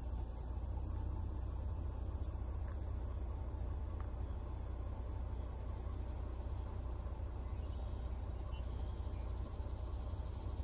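Steady insect trilling over a constant low rumble.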